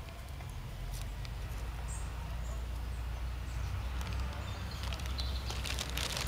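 Low wind rumble on the microphone with scattered rustling and handling noise, a couple of faint high chirps, and crackling of a paper bag near the end.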